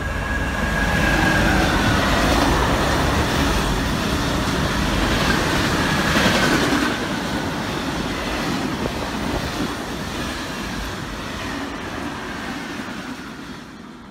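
Passing train: a steady rumble and rattle with faint high wheel squeal sliding in and out. It swells in the first couple of seconds and fades away over the last few.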